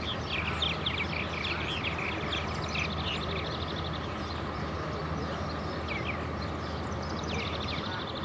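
Steady hum of a farm machine's engine running, with many birds chirping and trilling over it in quick, high, downward-sliding calls that come in clusters.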